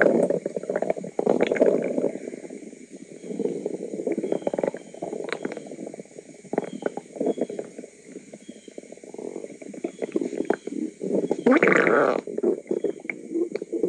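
A person's stomach gurgling and rumbling in an irregular run of bubbly gurgles and small pops, with a louder, longer gurgle near the end.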